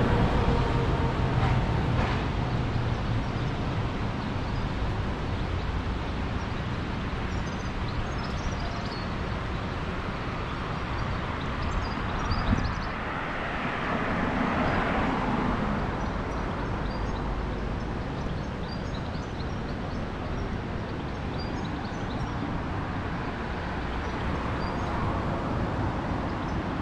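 Town street ambience heard while walking: a steady background of traffic and outdoor noise. A car drives past about halfway through, rising and fading over a few seconds. Faint bird chirps come through now and then.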